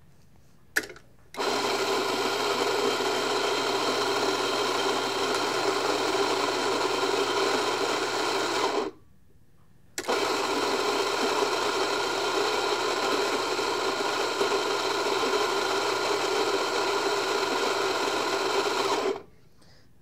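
Electric coffee grinder grinding beans into a portafilter in two runs, about seven and nine seconds long, with a steady motor hum and a pause of about a second between them. A couple of clicks come just before the first run.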